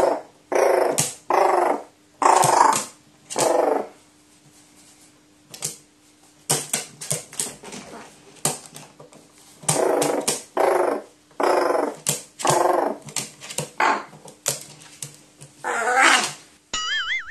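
A pet crow calling loudly and repeatedly in short harsh caws, a string of them, a short pause with a few small clicks, then many more, excited while playing. A wobbling electronic tone comes in right at the end.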